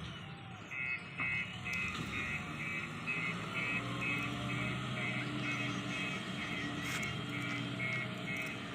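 JCB 3DX backhoe loader's diesel engine running steadily while its reversing alarm beeps about twice a second, starting about a second in.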